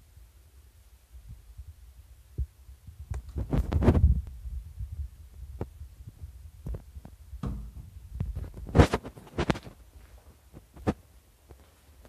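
Handheld camera handling noise: low thumping rumble with scattered knocks and clicks, and two louder rustling, scraping bursts about four and nine seconds in.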